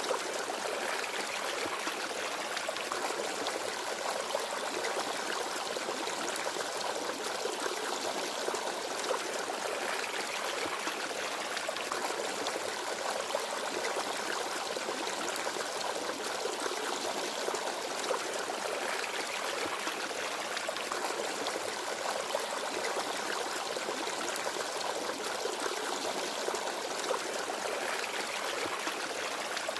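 Small forest stream babbling and trickling steadily over stones, with no birds.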